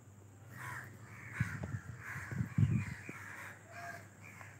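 Birds calling repeatedly in short harsh calls, with a couple of low knocks from the phone being handled, the louder one about two and a half seconds in.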